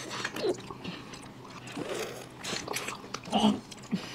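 Mouth sounds of people eating ice cream: licking and sucking on an ice lolly and biting a chocolate-coated bar, in short, scattered noises.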